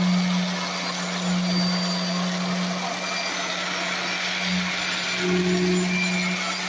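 Electric concrete vibrator running with a steady low hum that swells and dips slightly, settling freshly poured concrete in the countertop slab.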